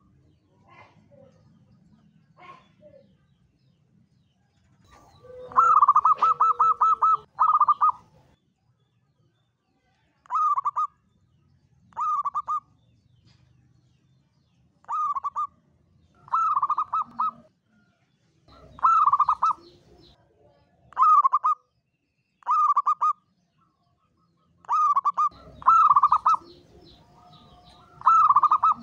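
Zebra dove (perkutut) cooing. About six seconds in comes one long run of quick, stuttering coo notes; after that, short coo phrases repeat every second or two.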